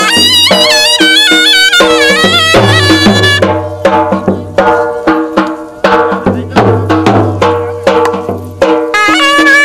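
Traditional Indian wedding music: a wind-instrument melody with ornamented, wavering notes over a steady drone and a drum beat. The melody drops out about three and a half seconds in, leaving the drums and drone, and returns near the end.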